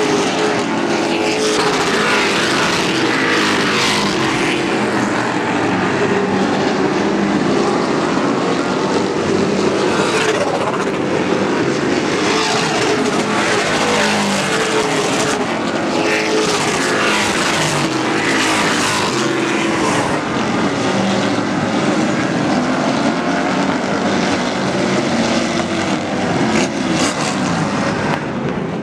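Engines of Pro Truck race trucks running at speed around a short oval track, with the pitch rising and falling as trucks go by.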